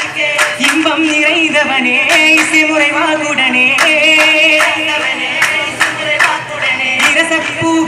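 A group of young male voices singing a Vattappattu, a Mappila wedding song, in ornamented, wavering melody, to their own steady hand-clapping at about two claps a second.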